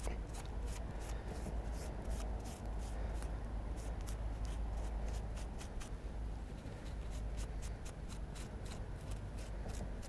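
Fingers rubbing and picking crumbly soil off a freshly dug-up find close to the microphone: dense, irregular crackling and rustling, over a steady low rumble.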